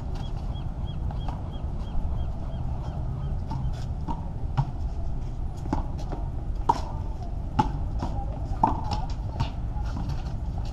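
Handball play: a rubber handball smacked by hands against a concrete wall and bouncing on the court, in sharp irregular hits a second or so apart, over a steady low rumble. A short run of high chirps repeats about three times a second in the first few seconds.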